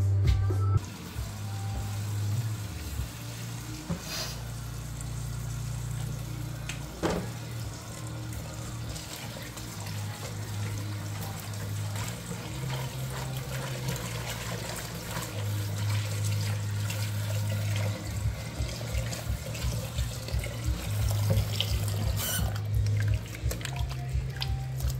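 Kitchen faucet running into a pot of cut green beans in a stainless steel sink as they are rinsed, the water stopping near the end. Background music with a steady bass line plays throughout.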